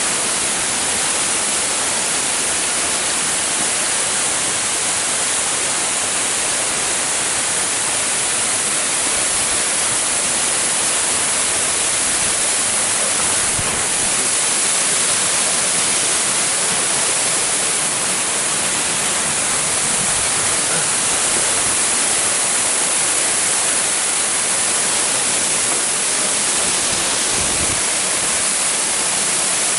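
Fudō Falls waterfall: a loud, steady rush of falling water, unbroken throughout.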